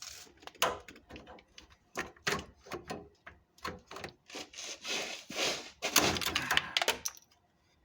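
Clicks, knocks and scraping from a headlight bracket and its clips being worked into place by hand on a Jeep Cherokee front end. There is a longer scraping rustle in the middle and several sharper knocks toward the end.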